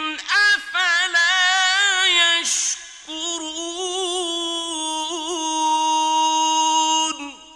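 A male reciter chanting the Quran in the melodic mujawwad style, drawing out long ornamented notes in a high voice. There is a short break about two and a half seconds in, then one long held note that wavers in the middle and falls away near the end with an echo.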